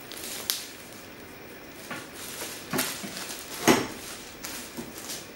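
Scattered knocks and clatter of a foldable steel-legged table mate being set down and shifted on a wooden tabletop. About half a dozen sharp knocks, the loudest about three and a half seconds in.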